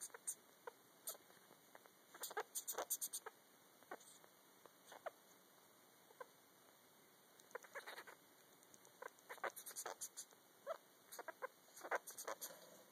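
Female sugar glider singing to her in-pouch joey: quick runs of soft chirps and clicks, with a lull of a couple of seconds about halfway through.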